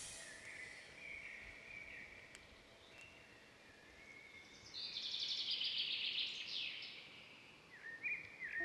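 Faint outdoor nature ambience with soft bird chirps, and a rapid trill lasting about two seconds past the middle.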